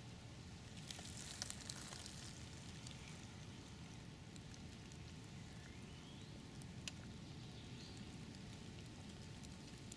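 Faint steady background hiss and low rumble, with a few small clicks about a second in and again near seven seconds, and a faint rising whistle about six seconds in.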